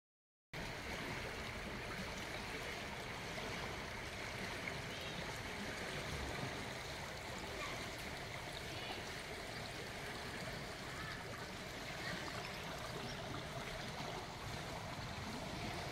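Fast-flowing river water rushing steadily past, an even, unbroken wash of water noise that starts about half a second in.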